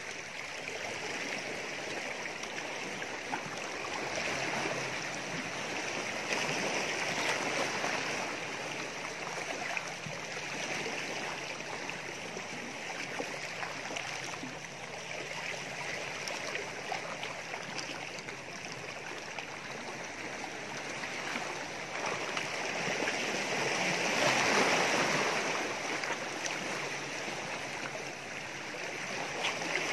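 Small sea waves washing and splashing against a rocky shore, a steady rush of water that swells louder a couple of times.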